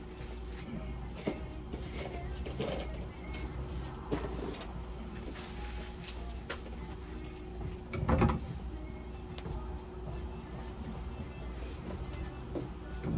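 Steady low electrical machine hum, with soft handling noises and one short louder bump about eight seconds in.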